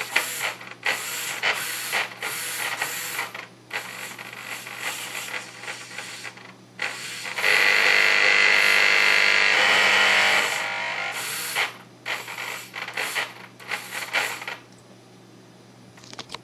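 Tower Pro MG995 servos whirring in many short bursts as they are swung back and forth by the gamepad's sticks. For about three seconds in the middle comes a steady, louder run, the 1100KV brushless outrunner motor spinning on its ESC. The sound stops about a second and a half before the end.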